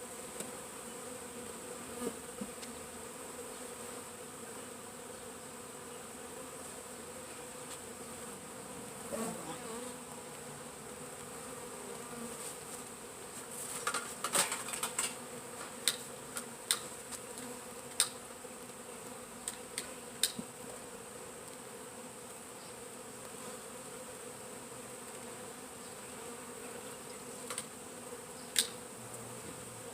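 Mass of package honeybees buzzing steadily at the hive, a continuous low hum. Sharp clicks and knocks are scattered through it, most in the middle and one near the end.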